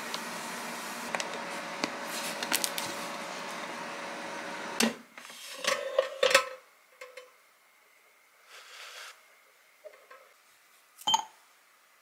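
Sugar poured into a glass bowl of sliced apples over a steady hum, with scattered light ticks. About five seconds in, a sharp clunk and a few knocks as a Philips air fryer's basket is pulled open, then quiet apart from one light clink near the end.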